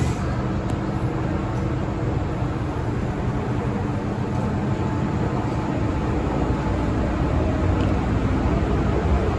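Steady running rumble of an MTR Island Line M-Train, wheels on rails, growing a little fuller and louder in the low end over the last few seconds.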